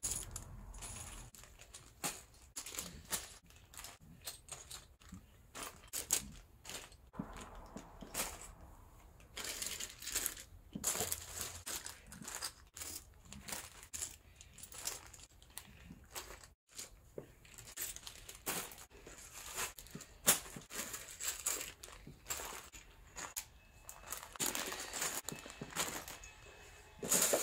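Plastic zip-lock bags of LEGO pieces crinkling and the loose bricks inside rattling as the bags are taken out of storage bins and set down, an uneven run of rustles and small clicks.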